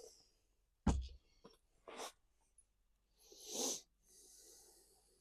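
One sharp knock about a second in, then a few light clicks: hard parts or hardware being handled. A short breathy noise follows a couple of seconds later.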